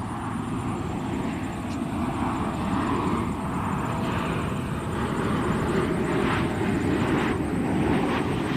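Garuda Indonesia Boeing 737-800 on final approach, its CFM56-7B jet engines giving a steady rumble and hiss that grows gently louder as the aircraft nears.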